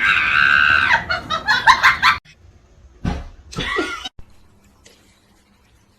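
A shrill held scream of about a second, then rapid laughter that cuts off suddenly about two seconds in. A couple of short voice-like calls follow, then it falls quiet.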